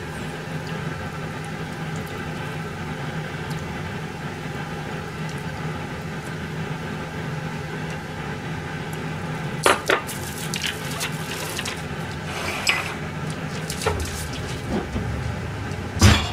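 Small ceramic dishes and chopsticks clinking and knocking on a steel kitchen counter as food is set out. The knocks are scattered through the second half, with the loudest one right at the end, over a steady background hum.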